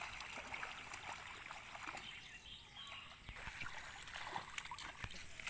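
Faint swishing and sloshing of shallow muddy water as a bamboo-framed push net is shoved and waded through a flooded rice paddy.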